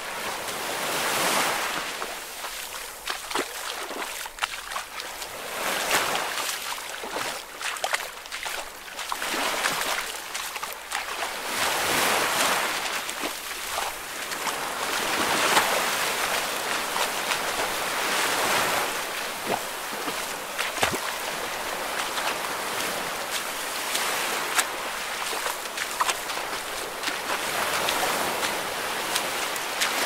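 Waves washing in and receding, the rush of water swelling and falling every few seconds, with small splashes and droplet clicks throughout.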